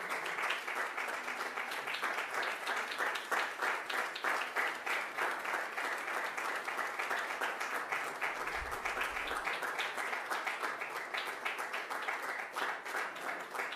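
A roomful of guests applauding steadily, the clapping thinning out toward the end.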